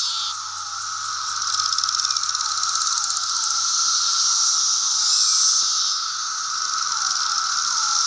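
Chorus of Brood II 17-year periodical cicadas: a steady droning hum with repeated short downward-sliding calls over it and a higher hissing buzz. A closer, rapidly pulsing buzz stands out from about one to three seconds in.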